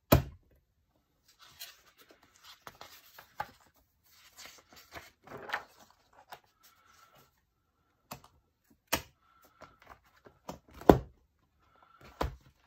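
Metal binder rings of a six-ring A5 planner snapping open with a loud sharp click, then paper insert pages rustling and sliding as they are lifted off the rings, with a few more sharp clicks and knocks as the rings and planner are handled.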